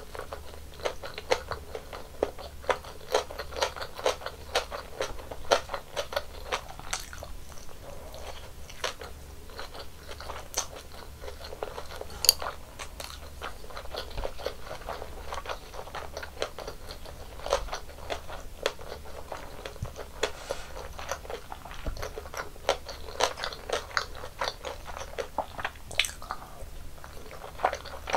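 Close-miked chewing and biting of Korean snack food, tteokbokki rice cakes and mini gimbap, with a dense run of small sharp clicks and crunches.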